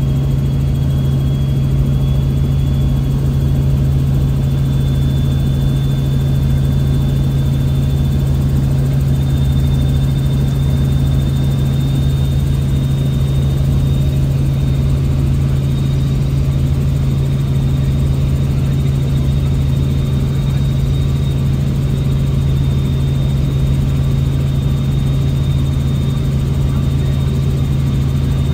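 Helicopter in flight: a loud, steady drone of rotor and engine with a thin high whine held above it.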